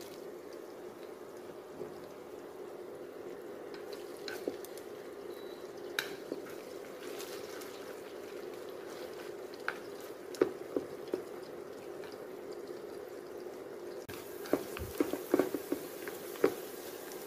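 Seasoned meat strips deep-frying in hot oil in an aluminium pan, a steady bubbling sizzle. Scattered sharp clicks and pops come from chopsticks stirring against the pan. The sizzle turns hissier and the stirring clicks come thicker near the end.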